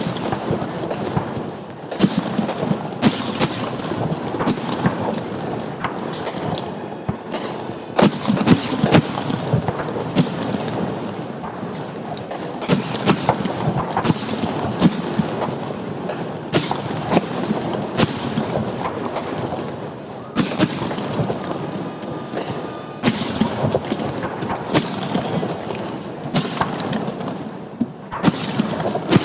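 Fireworks display: aerial shells bursting in quick succession, booms echoing and overlapping with crackle in a nearly continuous barrage, easing briefly about two-thirds of the way through before building again.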